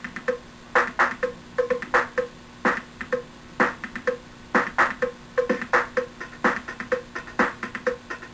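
Electronic instrumental music: a steady drum-machine beat with short synthesizer blips, played through a TV speaker.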